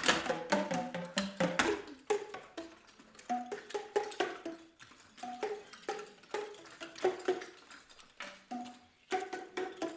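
Boomwhackers, tuned plastic tubes, struck to play a tune of short, hollow, pitched notes, with the sharp taps of clogging shoes clicking along. The playing is dense for the first two seconds, thins to scattered notes, and picks up again near the end.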